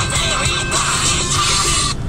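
Music playing from a car stereo inside a moving car, with a steady engine and road rumble underneath. The music cuts off suddenly at the very end, as the stereo is switched off.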